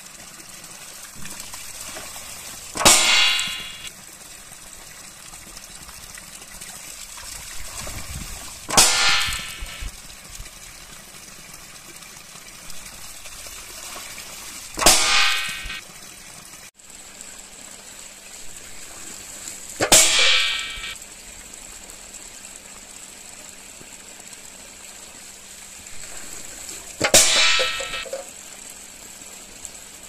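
A homemade water-powered seesaw crop scarer. A vessel fills with running water, tips down and strikes hard, then a stone counterweight lifts it back. There are five sharp strikes about every six seconds, each ringing for about a second, over steady running water.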